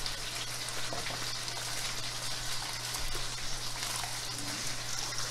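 Steady sizzling and bubbling from pots on a gas stove, with soft wet sounds of washed rice being pushed by hand from a steel bowl into a pot of peas simmering in coconut milk.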